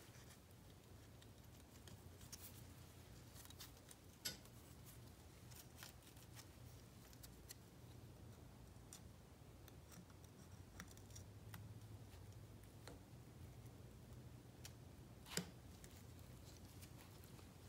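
Near silence with faint, scattered clicks and taps of hand tools and small engine parts being handled, including two sharper clicks about four seconds in and near the end, over a low steady hum.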